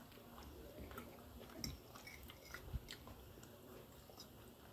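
Faint chewing and small eating sounds, with a few soft clicks scattered through, the clearest about a second and a half in.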